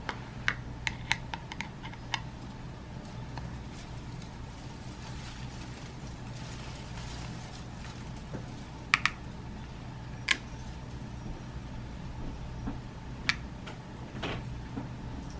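Scattered light clicks and taps of small lead .177 airgun pellets being picked from their metal tin and set on the steel pan of a digital pocket scale: a quick run of clicks at the start, a few more in the middle and near the end.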